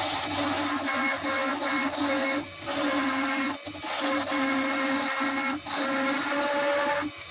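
Record Power DML320 wood lathe running while a gouge cuts the spinning wooden blank: a steady scraping hiss of the cut over the machine's hum, broken by short pauses about two and a half, three and a half and five and a half seconds in as the tool comes off the wood.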